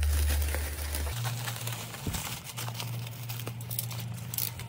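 Plastic bubble wrap crinkling and rustling as wrapped packages are handled and moved about, with small scattered crackles over a low steady hum.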